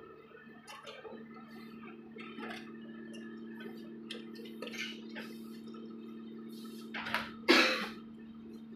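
Light clicks and taps of metal parts being handled inside a Speed Queen clothes dryer's cabinet over a steady low hum, with two louder knocks about seven seconds in.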